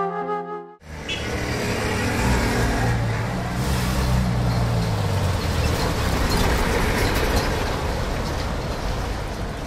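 A car driving up close, its engine running under the rumble of tyres, cutting in suddenly about a second in.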